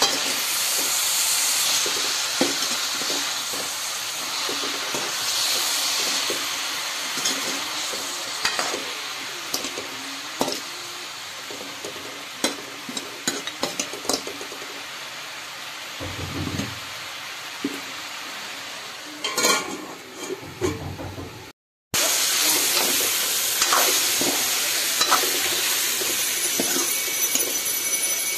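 Radish, greens and bone pieces sizzling in an aluminium wok while a steel spoon stirs, scraping and knocking against the pan. The sound drops out completely for a moment about three quarters of the way through, then the sizzling and stirring resume.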